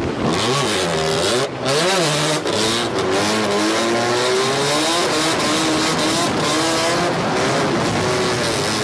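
Drift car engine revving hard, its pitch swinging up and down with quick throttle blips in the first couple of seconds, then climbing in long rises, with tyre squeal under it.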